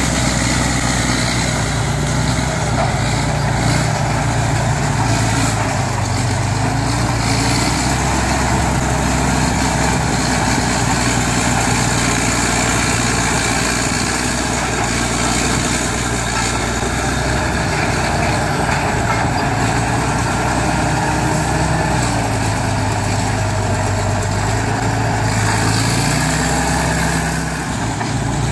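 Crawler bulldozer's diesel engine running as it works, its pitch stepping up and down a few times as the load changes.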